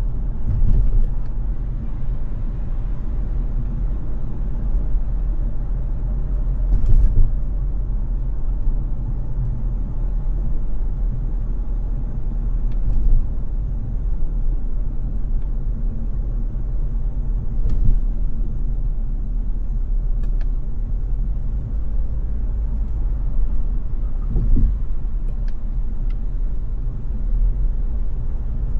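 Car driving in city traffic: a steady low rumble of engine and road noise, with a few brief knocks now and then.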